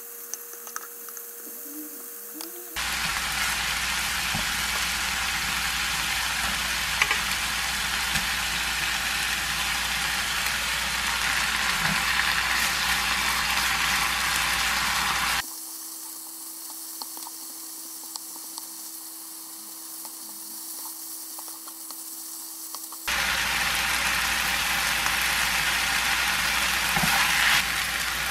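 Sliced pork, onion and kimchi sizzling in a frying pan while being stirred with a spatula. The sizzle comes in loud about three seconds in, drops back to quiet spatula clicks for several seconds in the middle, and comes back loud near the end.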